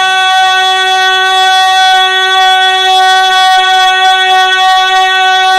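Loud, steady howl of microphone feedback through the PA system, held at one pitch with a buzzy edge of many overtones.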